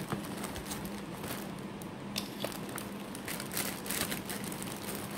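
Thin plastic bag crinkling and crackling in irregular small bursts as shredded salad is shaken out of it into a foam takeout box, over a faint steady low hum.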